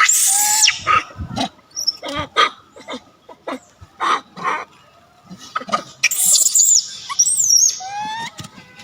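Monkeys screeching and squealing in short sharp bursts, with a run of high, rising squeals near the end.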